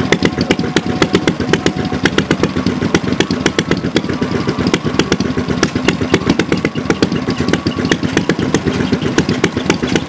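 Old single-cylinder stationary engine running steadily, with a fast, even clatter of mechanical ticks over a constant low drone.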